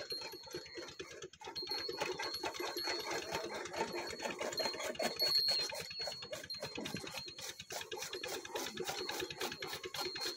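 Bull-driven iron gear train and chaff cutter (toka) running: a rapid, even clatter of meshing gear teeth and the turning cutter, with a thin high whine that comes and goes.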